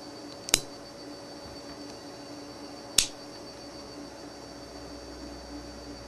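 Two sharp metallic clicks about two and a half seconds apart from a spring-assisted pocket folding knife as its blade and latches are worked by hand, over a faint steady hum.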